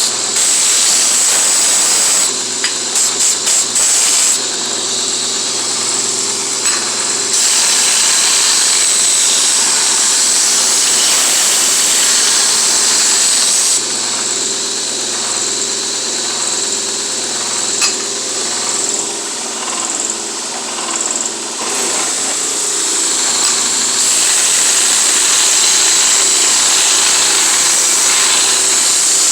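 Shop-built 2x72 belt grinder running on its swamp cooler motor: a steady motor hum under a loud, high hiss from the sanding belt. The hiss shifts in level a few times.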